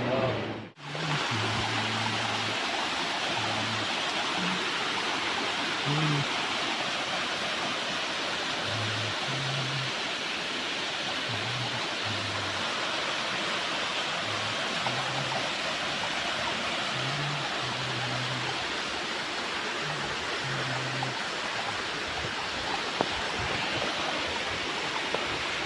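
Waterfall rushing: a steady, even roar of falling water that briefly drops out just under a second in.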